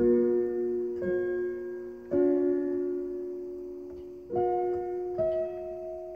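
Slow keyboard music, most likely piano: sustained chords struck five times, irregularly a second or two apart, each left to ring and fade.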